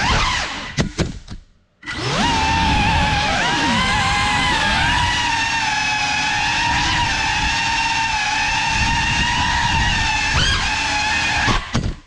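Ducted brushless motors and props of a small FPV cinewhoop drone (GeprC CineLog 35) whining in flight. Early on the throttle drops and the whine falls nearly to nothing, with a few sharp ticks. About two seconds in the motors spool back up to a steady whine. Near the end a couple of knocks come as the drone crashes, and the motors cut out abruptly.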